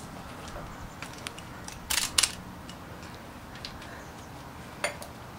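Scattered metal clicks and clacks of a socket wrench being fitted and worked on a stubborn, tight nut on an engine bracket, with two sharper clacks close together about two seconds in.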